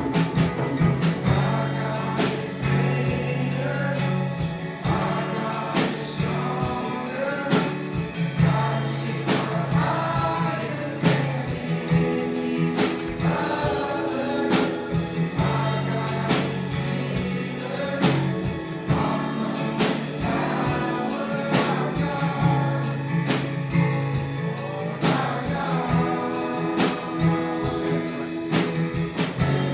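Live gospel worship music: a group singing over a band with a steady beat, bass and guitar.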